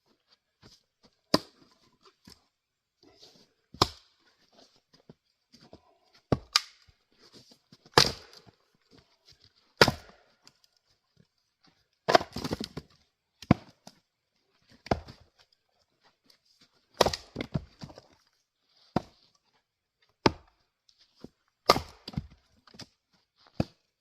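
Axe splitting firewood: about a dozen sharp wooden chops, spaced irregularly a second or two apart, with fainter knocks and scuffs of wood pieces between them.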